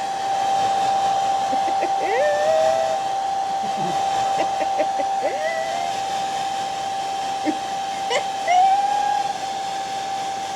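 Hand-held hair dryer running steadily: a blowing hiss with a constant whine. A few short rising calls and a click sound over it.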